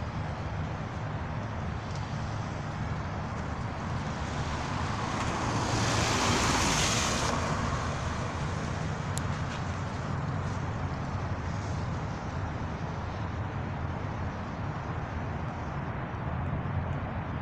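Steady street traffic noise, with one vehicle passing close about six seconds in: a rush that swells and then fades.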